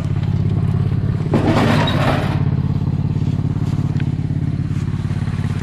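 Off-road garden tractor's small engine running at a steady idle, with a brief rush of noise about a second and a half in.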